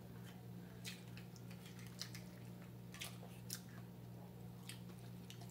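Faint chewing and lip-smacking of people eating, with scattered small clicks, over a steady low hum.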